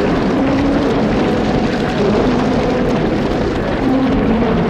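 A group of lions growling together in a steady, dense rumble, several voices overlapping and wavering in pitch.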